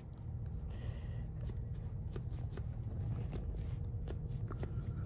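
Hand primer pump on the Mercedes 240D's OM616 diesel injection pump being pumped by hand: soft, irregular clicks and rustling as the plunger is worked to draw diesel through the new fuel filter and push out the air.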